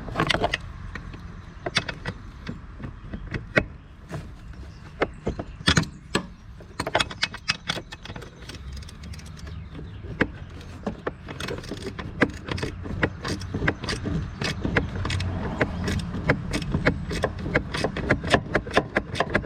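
Ratchet wrench clicking and metal tools clinking while working a fitting on a Mercedes SL500's brake master cylinder. The clicks are scattered at first, then quicken into fast, steady ratcheting in the second half, over a steady low hum.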